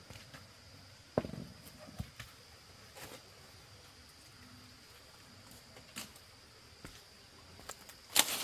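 Scattered light knocks and clatter, as of objects being handled or set down, with a louder burst of clatter near the end, over a faint steady high-pitched whine.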